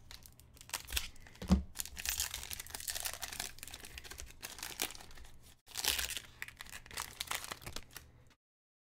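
Foil wrapper of a trading-card pack crinkling and tearing as it is ripped open by hand, with a single thump about a second and a half in. The sound cuts off abruptly about eight seconds in.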